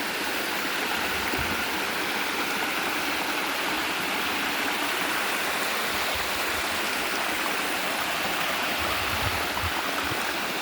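Water of a waterfall rushing steadily over rocks, heard from the top of the falls.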